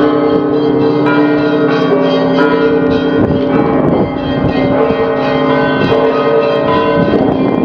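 The bells of Alexander Nevsky Cathedral pealing: many bells struck in quick succession, their tones ringing on and overlapping into a dense, continuous sound.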